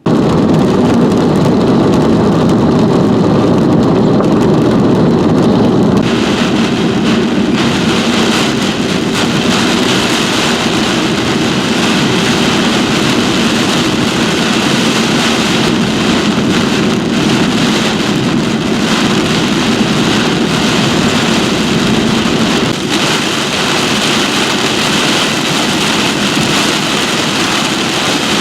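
Heavy rain and strong wind in a severe thunderstorm, a loud steady roar of rain and wind noise. The hiss of the rain gets stronger about six seconds in.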